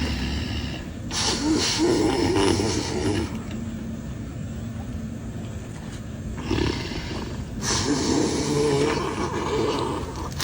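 A sleeping person snoring loudly: two long, rattling snores about six seconds apart.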